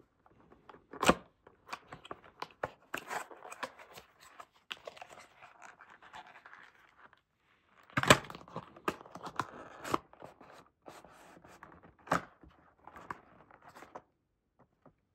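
Cardboard packaging being opened and unfolded by hand: irregular rustling and scraping of card and paper, broken by a few sharp snaps of the folds, one about a second in, the loudest around the middle and another a few seconds later.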